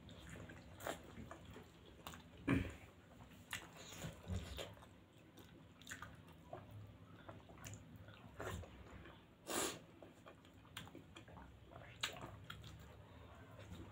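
Close-up eating sounds: wet chewing and smacking of soft penne pasta and paneer momos, with irregular small clicks and two louder smacks, about two and a half seconds in and near ten seconds.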